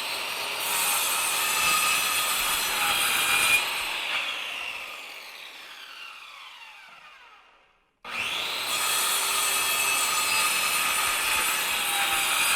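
Drill press running a homemade sanding spindle, sandpaper rubbing on wood. About three and a half seconds in the motor is switched off and coasts down, its whine falling in pitch until it stops; after a brief silence it runs again.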